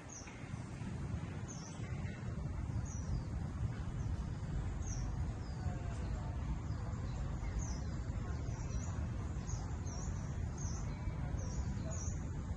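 Small birds chirping: short high chirps that slide downward, sparse at first and coming more often in the second half, over a steady low rumble.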